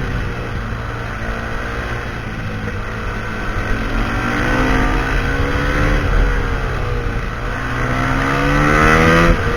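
Husqvarna SMR 511 supermoto's single-cylinder four-stroke engine through a full Akrapovič exhaust, revving up and down. Its pitch climbs twice, then drops suddenly near the end.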